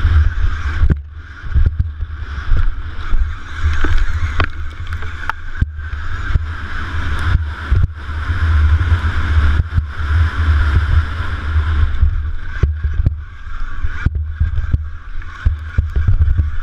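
Electric KTM Freeride motocross bike ridden at race pace: heavy wind buffeting on the onboard microphone over the electric drive's whine, with frequent sharp clicks and knocks as the bike rides the track.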